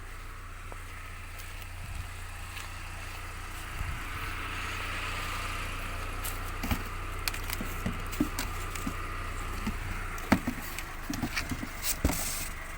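Steady road-traffic noise, swelling as vehicles pass, with light knocks and clicks of junk being handled and moved that come thicker in the second half.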